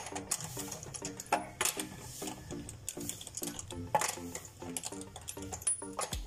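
Socket ratchet clicking as it is spun to run the lug nuts off a car wheel, with a few sharper metal clicks, over background music.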